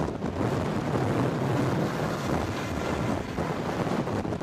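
Strong wind blowing over the camera microphone, a steady low rush with small gusts.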